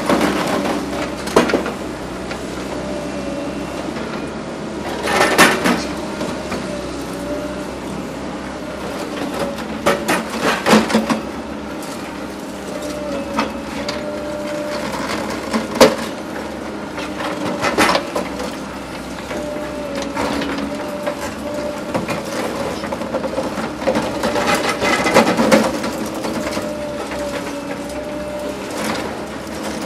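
Excavator's diesel engine and hydraulics running steadily with a wavering whine, while an Atlas Copco DP2800 demolition pulveriser crushes concrete: bursts of cracking and crunching several times, the sharpest a little past halfway.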